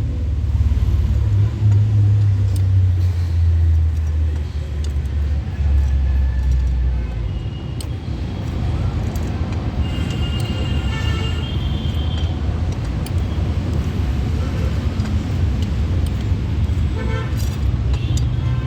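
Road traffic with a steady engine rumble, and vehicle horns sounding about ten seconds in and again near the end.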